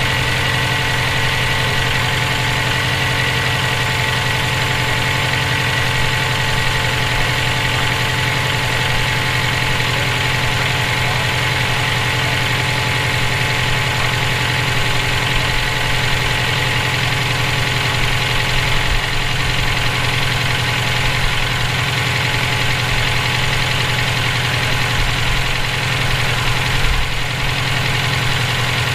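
Subaru EJ257 turbocharged 2.5-litre flat-four idling steadily with a persistent knocking noise, which the owner suspects could be rod knock from a spun bearing or valve lash out of adjustment.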